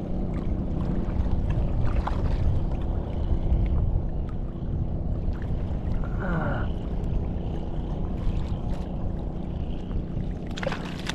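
Wind buffeting the microphone in a steady low rumble, with water lapping against the kayak's hull.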